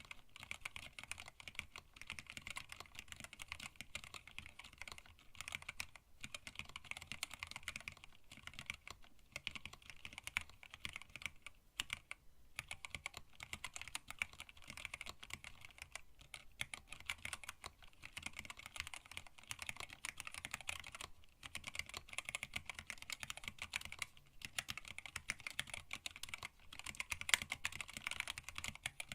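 Continuous typing on a hand-wired split mechanical keyboard with Tealios linear switches, an acrylic case and blank PBT keycaps: a fast, dense clatter of keystrokes with a few brief pauses.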